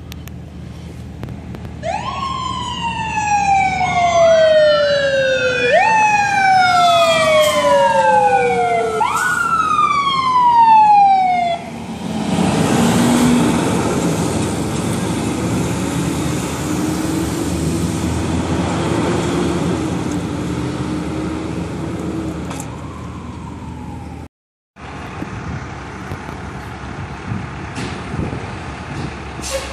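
Fire engine siren wailing in repeated falling sweeps, each gliding down for a few seconds and jumping back up, with two tones overlapping. About twelve seconds in the sweeps stop and a loud rumble with a low wavering tone takes over as the apparatus moves off.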